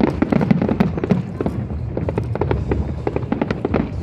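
Fireworks going off in quick succession: many sharp bangs and crackles overlapping on a continuous low rumble.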